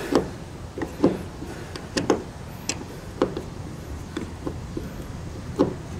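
Light scattered clicks and ticks of a screwdriver working the screws of a plastic Toyota Tacoma tail light lens, roughly one a second, over faint steady background noise.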